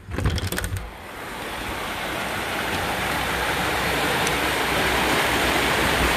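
Steady rushing of a creek's flowing water. It starts abruptly with a few clicks and a low rumble, then grows gradually louder.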